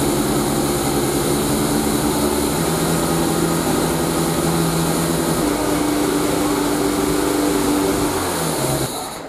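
Toyota 4S-FE 1.8-litre inline-four engine running at held speeds on a test stand, raised in steps from about 2000 to 2500 to 3000 rpm, the pitch going up at each step. The sound fades out near the end.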